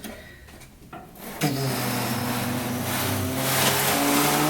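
Oscilloscope packaging rubbing and scraping as the scope is drawn out of its box. The sound starts about a second and a half in, is loud and sustained, and carries a steady squeal through it.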